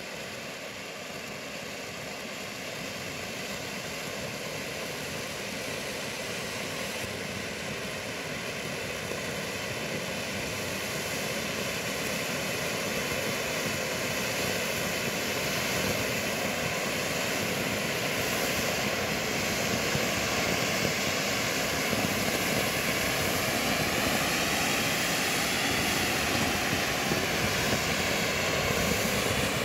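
Bugano/Zink Color Dream firework fountain burning: a steady rushing hiss of spraying sparks that grows gradually louder.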